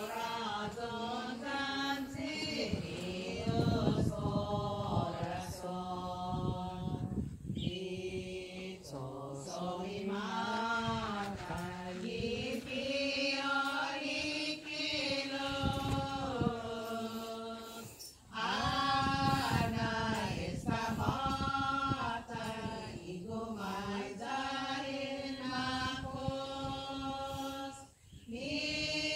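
Voices singing a slow hymn in long, held phrases, with short breaks between phrases about every ten seconds.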